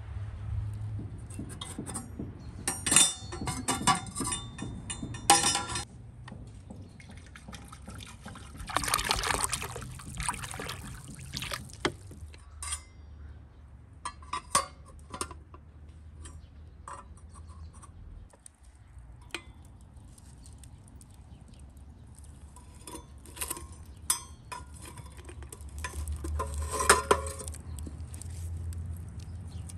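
Cooking sounds: dishes and utensils knocking and clinking, with a few seconds of liquid pouring about a third of the way through.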